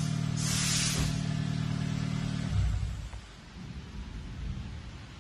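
A motor running with a steady hum, which stops about two and a half seconds in and leaves a faint low rumble. A short hiss comes about half a second in.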